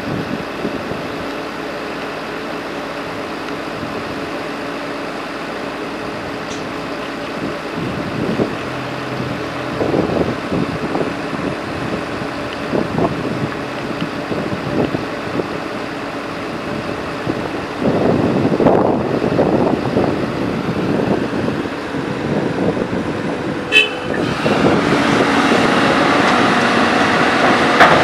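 CAT 320D hydraulic excavator's diesel engine running, with uneven surges as the boom swings the loaded bucket. About three-quarters of the way through there is a brief high-pitched toot, then a steadier rush as soil starts spilling from the bucket into the steel bed of a dump truck.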